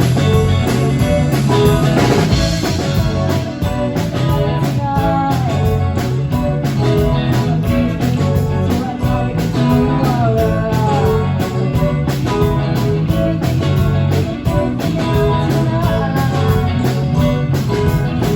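Rock band playing: guitar over bass and a drum kit keeping a steady beat, with some bending guitar notes.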